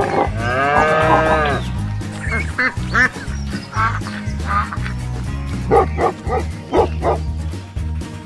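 Background music with a steady beat, over which sound effects play: one long animal call about half a second in, then several duck quacks, then a run of dog barks near the end.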